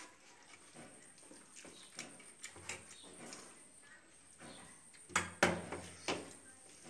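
Eating by hand from steel plates: fingers mixing rice and curry, chewing and lip smacks as small irregular clicks, with a few louder knocks a little past five seconds in.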